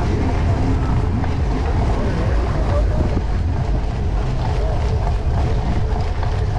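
Wind buffeting the microphone of a camera riding on a cyclocross bike, mixed with the tyres rolling over sand as a steady low rumble.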